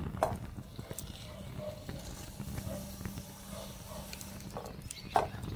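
Burning plastic crackling and popping in open flame over a low steady rumble of fire, with two louder sharp snaps, just after the start and near the end.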